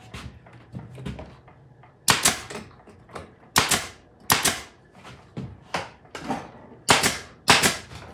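Hard objects knocking and clicking as parts are fitted into place on a workshop cart: five loud, sharp knocks spread through, with lighter clicks between them.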